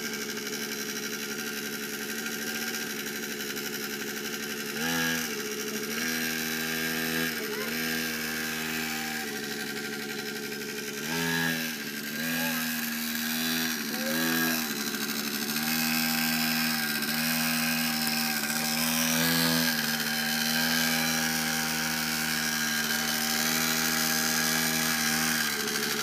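Small two-stroke engine of a child's mini dirt bike running as it is ridden, its pitch rising briefly several times as the throttle is blipped and then falling back.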